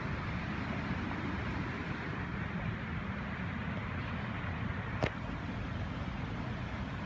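Steady rush of stormwater pouring and cascading after a sudden heavy rain and hail storm, with one sharp click about five seconds in.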